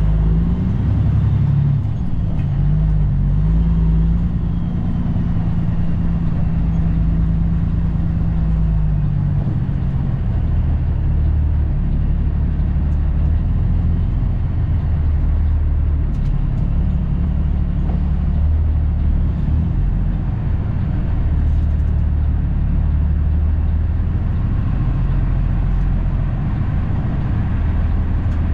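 Cummins ISX diesel engine of a Kenworth W900L heard from inside the cab, pulling the truck along at low speed. The engine note wavers up and down for the first several seconds, then drops and settles into a steady low drone.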